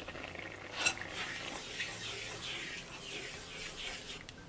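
A spatula stirring and scraping through curry gravy in a pan, in repeated short strokes, with one sharp knock against the pan about a second in.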